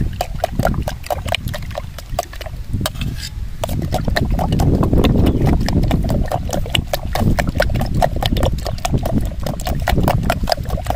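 Raw eggs being beaten with a spoon in a stainless steel bowl: rapid metallic clinks of the spoon against the bowl, several a second, with the slosh of the egg mixture, pausing briefly about three seconds in. A steady low rumble lies underneath.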